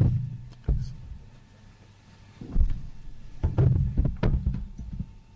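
Table microphones being handled and moved: a series of dull thumps and knocks close to the microphones, with some muffled talk among them.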